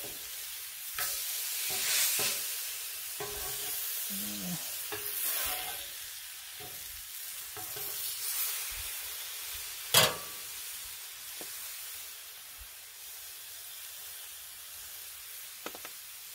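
Beef burger patties sizzling steadily on a hot Blackstone steel griddle while a metal spatula scrapes under them and flips them. Several short scrapes come in the first half, and one sharp metal clack about ten seconds in.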